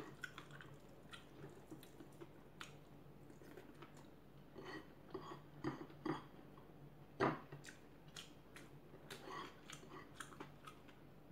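Faint chewing and small mouth sounds of a person eating rice by hand, with scattered light clicks and one louder click about seven seconds in.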